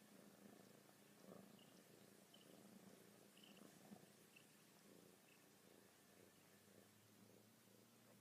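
Faint purring from a domestic cat, a steady pulsing rumble, with a few short faint high blips in the first half.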